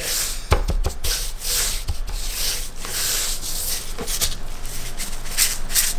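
Gloved hand rubbing dry barbecue rub into a rack of baby back ribs on a wooden cutting board, in repeated scraping strokes, with a few soft knocks on the board in the first two seconds.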